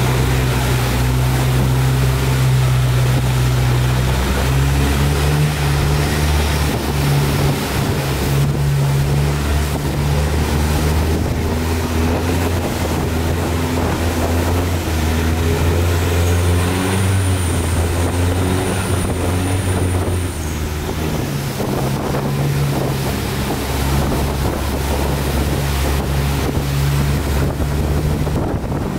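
Motorboat engine running at speed with water rushing past and wind buffeting the microphone; the engine's pitch shifts slightly about four seconds in and again near the end.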